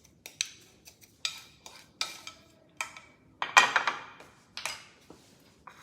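Spoon stirring a dry spice rub in a dish, clinking and scraping against it in irregular strokes; the loudest clatter comes about three and a half seconds in.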